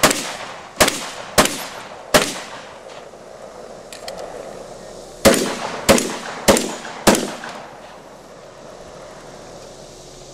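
A long gun firing during a 3-gun stage: four shots a little under a second apart, a pause of about three seconds with a few faint metallic clicks, then four more shots about 0.6 s apart. Each shot has a short echoing tail.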